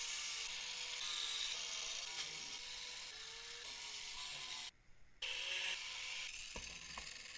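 Abrasive scraping of rust off a steel garage door, a steady rasping noise. It cuts out abruptly for about half a second near the middle, and two sharp knocks follow near the end.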